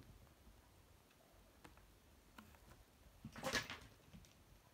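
Mostly quiet room with a few faint taps, and a short rustling scrape about three and a half seconds in.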